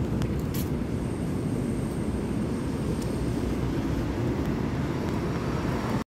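Steady low rumble of outdoor background noise, with a couple of short clicks in the first second.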